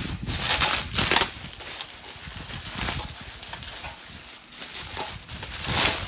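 Bubble wrap rustling and crinkling as it is handled and pulled off a stove panel, with louder crackly bursts about a second in, around three seconds in and again near the end.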